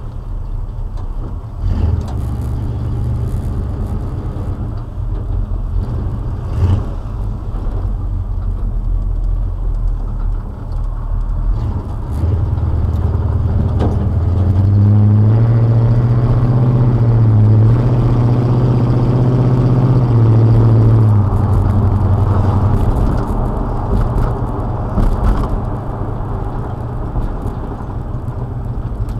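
Old pickup truck's engine and exhaust heard from inside the cab while driving. About halfway through the engine pulls harder and climbs in pitch, dips briefly, then eases back to a steady run, with a couple of short knocks early on.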